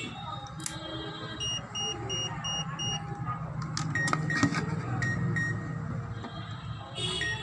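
Electronic beeping: a quick run of about five short high beeps, then a few shorter, lower beeps, over a steady low hum.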